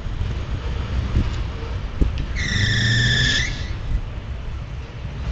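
Steady rumble of a loaded coal train's freight cars rolling away over the rails, with a high steel-wheel squeal on the curve about two seconds in that lasts about a second.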